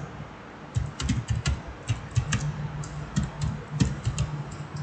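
Typing on a computer keyboard: a quick, uneven run of key clicks starting about a second in.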